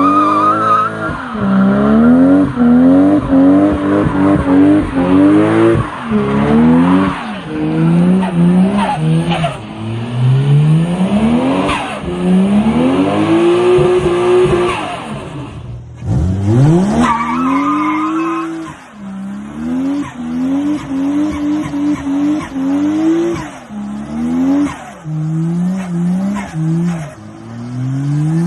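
Toyota JZX90 Mark II's 1JZ-GTE twin-turbo inline-six revved hard again and again during a burnout, its revs rising and falling every second or two over the squeal of spinning rear tyres.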